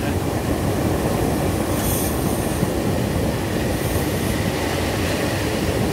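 Diesel locomotive under way, heard from inside the driver's cab: a steady engine drone mixed with the rumble of the wheels on the rails.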